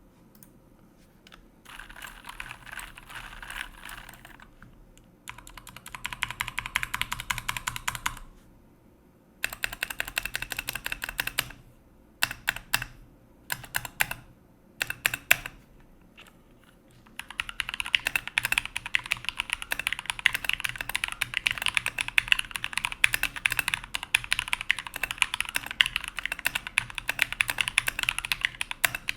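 Typing on a mechanical keyboard with Cherry MX Brown switches: several short runs of rapid keystrokes, a few single key presses around the middle, then continuous fast typing for the last dozen seconds.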